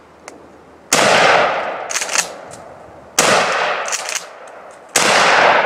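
Three 12-gauge shotgun blasts from a Mossberg Maverick 88 pump-action firing 00 buckshot, about two seconds apart, each with a long echoing decay. Between shots the pump is worked, a quick double clack of the action cycling a fresh shell.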